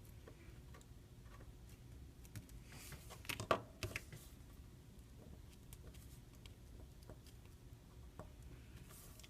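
Faint clicks and taps of small tools and parts being handled during smartphone repair, with a quick cluster of louder clicks about three and a half seconds in, over a low steady hum.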